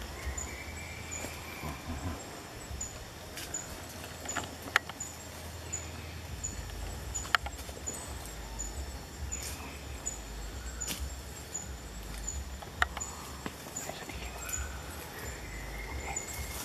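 Outdoor tree-canopy ambience: a short high chirp repeating a little faster than once a second, under a low rumble, with three sharp clicks.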